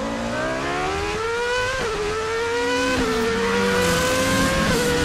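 Car engine accelerating hard, its pitch climbing and dropping back sharply three times as it shifts up through the gears.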